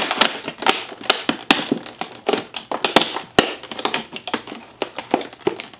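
Stiff clear plastic toy packaging clicking, crackling and snapping as hands pry and pull it open, an irregular run of sharp clicks.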